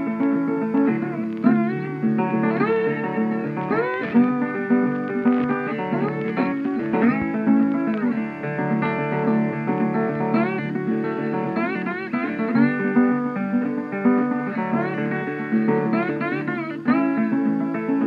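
Background music: a plucked guitar tune with many notes sliding up in pitch into held notes.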